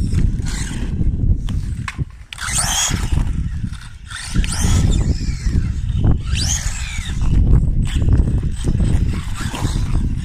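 Small electric RC car motors whining, rising and falling in pitch several times as the cars speed up and slow down, over a constant low rumble.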